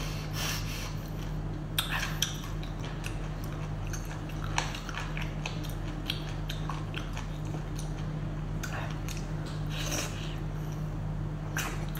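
Close-up wet chewing, biting and lip-smacking of someone eating chili-oil-dipped sea cucumber, with irregular sharp smacks and slurps. A steady low hum runs underneath.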